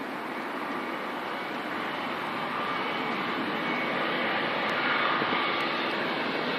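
Jet airliner on its landing approach, its engine rush growing steadily louder as it comes closer, with a faint whine over it.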